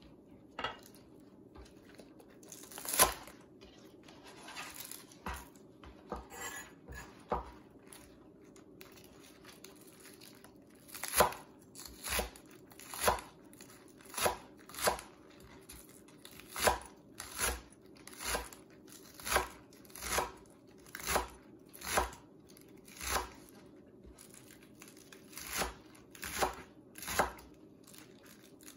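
Chef's knife slicing green onions on a plastic cutting board: a few scattered cuts at first, then steady cuts about one a second, each ending in a sharp knock of the blade on the board.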